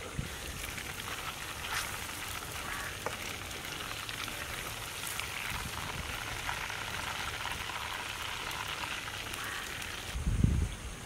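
Marinated chicken pieces deep-frying in hot oil in a clay pot: a steady sizzle. About ten seconds in it stops abruptly and a dull thump follows.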